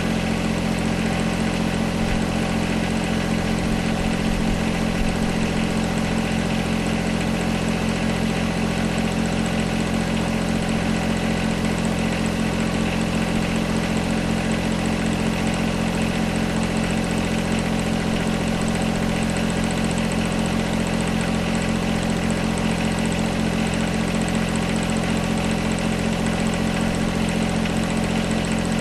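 John Deere 1025R compact tractor's three-cylinder diesel engine running steadily at low engine speed, with no change in pitch.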